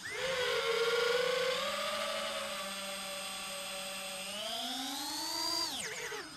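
FPV quadcopter's four T-Motor Velox V2207 2550KV brushless motors and propellers whining as the throttle comes up suddenly at the start. The pitch holds fairly steady, climbs about four seconds in, then drops sharply near the end as the throttle is cut.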